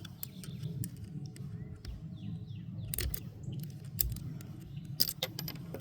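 Scattered metallic clicks and taps from the Hatsan Escort .22 rifle's action as a stuck spent shell casing is worked at, with a few sharper clicks about three, four and five seconds in. Faint bird chirps sound in the middle.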